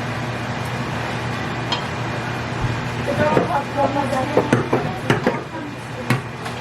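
A spoon stirring popcorn through melted marshmallow in a pot, knocking and clinking against the pot in a quick cluster of strokes from about three seconds in, over a steady background hum.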